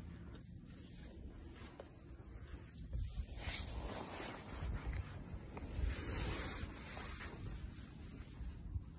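Rubbing and rustling against the phone's microphone as cat fur and a jacket's fabric brush over it, in uneven patches that grow louder from about three and a half seconds in.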